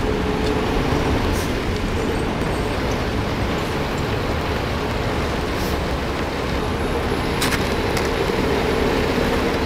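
Steady rumble of vehicle engines and street traffic, with an engine hum at the start and again from about seven seconds in. A few short scrapes of shovels on asphalt come through the noise.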